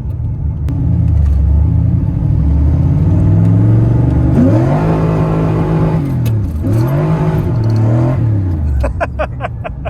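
LS V8 engine in a Pontiac Fiero, running under hard acceleration. The revs climb, dip briefly and climb again, then fall away, with a quick run of clicks near the end.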